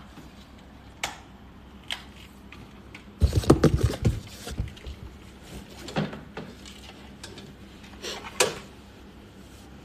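Objects being handled by hand: scattered clicks and knocks, with a louder stretch of clattering about three to four seconds in.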